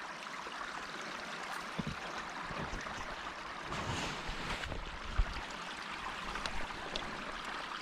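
Creek water running steadily, with a few soft low knocks from handling close to the microphone.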